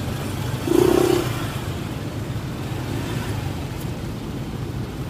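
Steady wind rush and engine noise from riding a Honda ADV scooter in road traffic. About a second in, a short steady tone sounds once.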